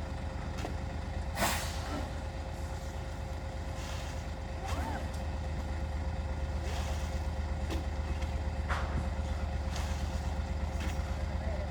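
An engine running steadily with a low chugging pulse that grows louder about five seconds in, with a sharp knock near the start and several lighter knocks after it.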